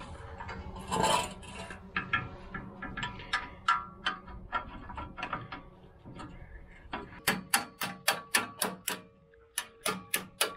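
Metal clinks and knocks of a steel wagon tongue being fitted into the hitch bracket on a hay wagon's front axle. About seven seconds in, a quick run of sharp metallic clicks, about five a second, with a few more near the end.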